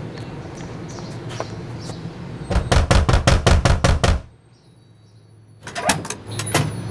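Rapid knocking on a front door, about ten quick knocks in a second and a half. After a short pause, a doorknob is turned and the latch clicks as the door is opened.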